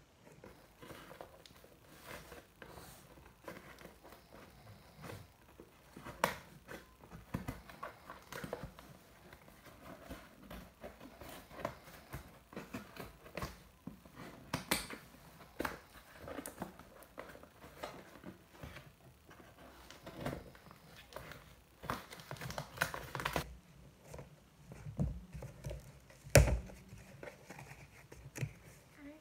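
Scissors snipping through a paper-wrapped cardboard package, with irregular rustling, crinkling and tearing of paper and cardboard. One loud thump comes near the end as the box is pulled open.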